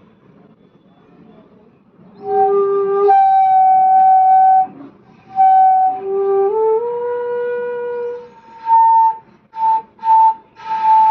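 Bamboo bansuri flute blown with a breathy, hissing air noise over the tone: the escaping air of a too-open lip aperture and a poor blowing angle. The notes flip between a low pitch and its octave, step upward, then break off into several short notes near the end.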